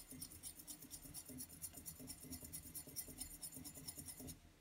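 A metal bar spoon stirring bitter orange marmalade and gin in a balloon glass, scraping faintly against the glass in a quick, even rhythm. It stops shortly before the end.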